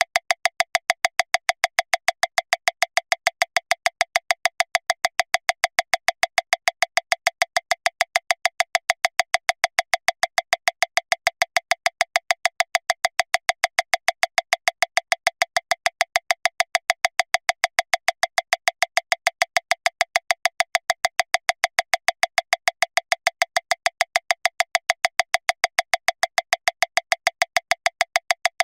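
Metronome clicking at 405 beats per minute, about seven evenly spaced clicks a second, every click alike with no accented beat.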